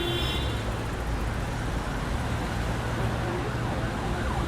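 A steady low mechanical hum under a background hiss.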